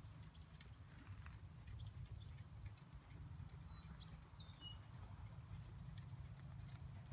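Faint hoofbeats of a bay Quarter Horse loping on sand arena footing, over a steady low rumble. A bird chirps a few times, one call falling in pitch about four seconds in.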